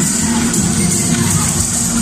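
Loud music playing.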